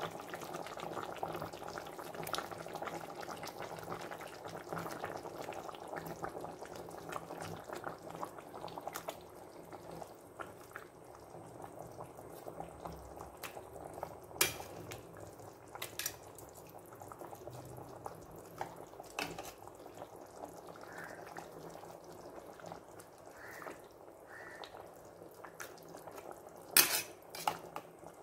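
Chicken pieces in thick masala gravy bubbling in a pot on a low flame, the bubbling fading after about ten seconds. A few sharp clinks of a spoon against the pot as the meat is turned, with two louder clacks near the end.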